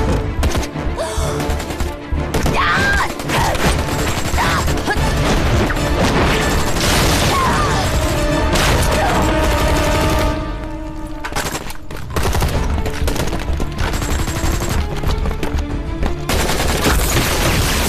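Action-drama soundtrack: volleys of gunfire and smashing timbers over dramatic background music, briefly quieter about two-thirds of the way through.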